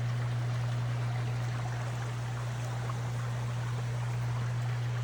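Brook flowing: a steady rush of running water, with a steady low hum beneath it.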